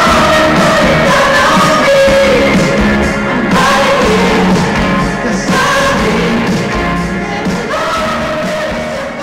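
Live pop music with a male lead vocal, played through a stadium PA and heard from the crowd.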